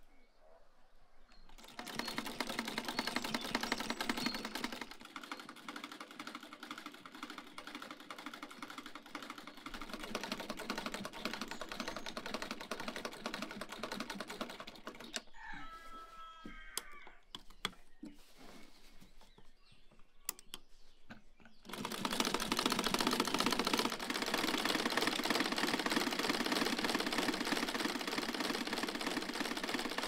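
Vintage black sewing machine running, a fast even clatter of stitching. It starts a couple of seconds in, eases off about halfway with a few scattered clicks, and starts again louder about two-thirds of the way through.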